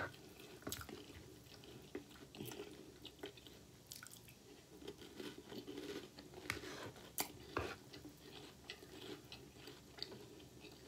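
Faint chewing of a mouthful of cereal, with short soft crunches and mouth clicks scattered throughout.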